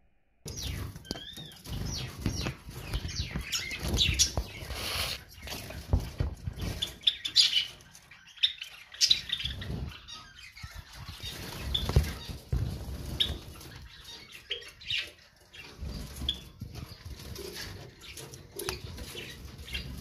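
Small caged finches, Java sparrows and zebra finches, giving many quick, high chirps and fluttering about in the cage, over irregular dull low thumps.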